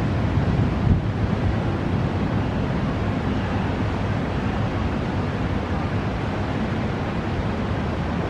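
Storm wind blowing steadily and buffeting the microphone, a dense even rush that is heaviest in the low end, with no thunderclap.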